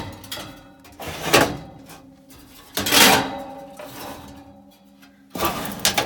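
Three bursts of metal scraping and rattling as the loose furnace blower motor and its broken mounting bracket are moved by hand against the sheet-metal blower housing.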